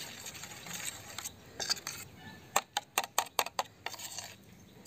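Metal spoon stirring and beating raw eggs with chopped onion and chilli in a stainless-steel bowl: wet scraping with a run of quick clinks against the bowl about halfway through.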